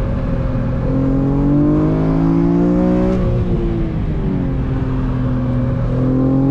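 BMW straight-six engine under hard driving, heard from inside the cabin. The note climbs for about three seconds, breaks off briefly, dips, then climbs again as the throttle is worked through tight corners.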